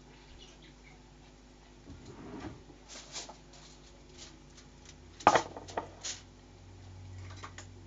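Scattered light knocks and clicks, with one sharp knock about five seconds in followed by a few smaller ones.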